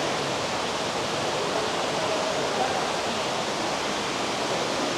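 Steady, even rushing hiss with no distinct events, like running water or moving air.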